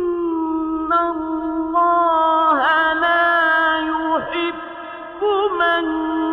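A man's high voice chanting Qur'anic recitation, holding long sustained notes with ornamented pitch turns, softer for a moment in the middle before rising again.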